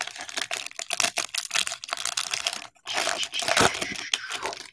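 Baseball trading cards being handled and slid past one another: a dense run of quick clicks and rustling, with a short break about two and a half seconds in.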